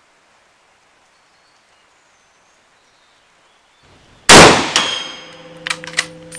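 Light rain hiss, then a single loud rifle shot from a 6.5×52mm Carcano M91/41 about four seconds in, followed by a few sharp metallic clicks and clanks as the bolt is worked, with a short metallic ringing.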